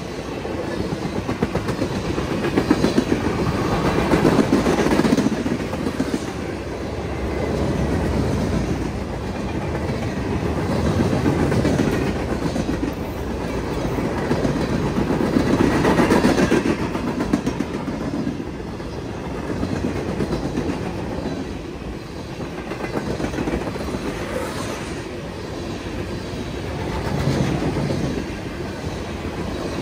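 Freight train cars (tank cars, boxcars and gondolas) rolling past: a steady rumble of steel wheels with a dense clickety-clack over the rail joints, swelling and easing every few seconds.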